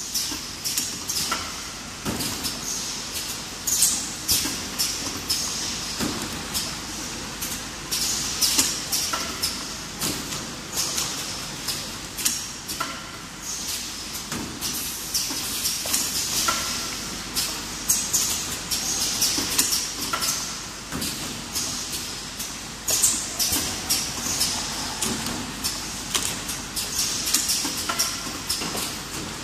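Automatic bottle filling and capping line running: a dense, irregular stream of clicks, clatters and short air hisses from the conveyor, the pneumatic filling heads and the capper working plastic water bottles.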